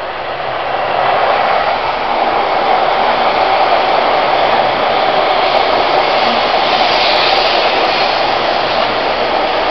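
Taiwan High Speed Rail 700T electric trainset running into the station platform and sliding past close by: a steady rushing of air and running gear that builds over the first second, then holds level.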